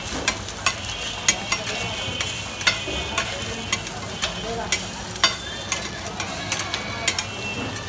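Eggs frying on a large round griddle, a steady sizzle under the sharp clacks and scrapes of a metal spatula against the griddle, about two a second and irregular.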